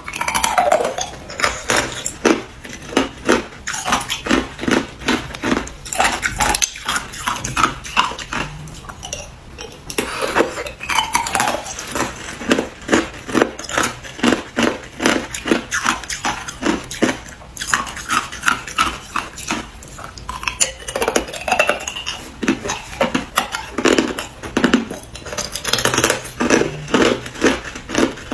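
Hard clear ice being bitten and chewed: a long run of loud, crisp crunches, several a second, with a few short pauses.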